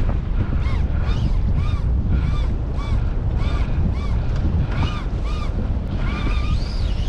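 A big-game fly reel squealing under a tightly cranked drag as a giant trevally pulls line. Each squeal rises and falls in pitch, repeating evenly about two to three times a second, over the low rumble of wind and the boat.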